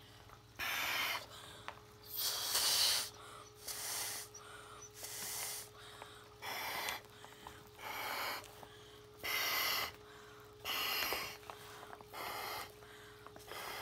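Blowing by mouth into the red oral inflation tubes of a two-chamber airplane life vest to inflate it: about ten rushes of breath, one every second and a half or so.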